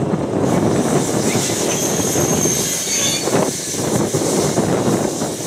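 A road-rail Unimog shunts a rake of sliding-wall freight wagons, and the wagons rumble steadily as they roll over the track. A high wheel squeal rises out of the rumble about two seconds in and lasts around a second.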